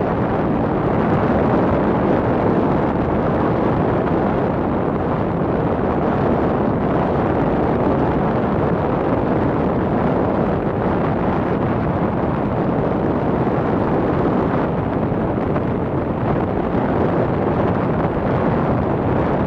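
Steady rush of wind on the microphone of a moving motorcycle, with the motorcycle's engine running underneath.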